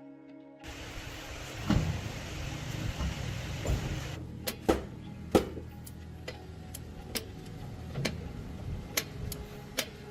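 Mechanical noise: a low steady rumble with a hiss over the first few seconds, then a series of sharp knocks and clicks.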